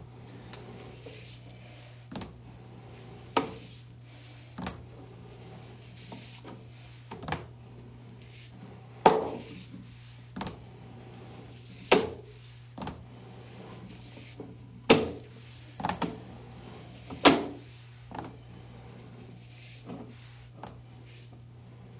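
Sewer inspection camera's push cable being pulled back and fed onto its reel: irregular knocks and clunks every second or two, over a steady low hum.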